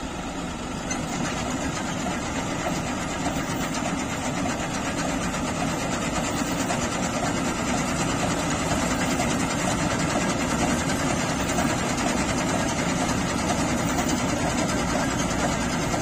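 Tractor-mounted combine harvester running steadily while cutting wheat: the New Holland tractor's diesel engine working under load together with the harvester's cutting header and threshing machinery.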